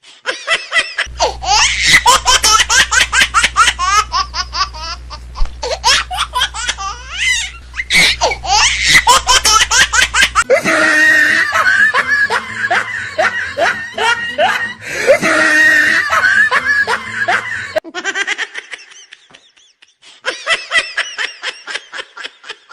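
People laughing hard in rapid, high-pitched bursts of giggles and belly laughs, with a steady low hum under the first half.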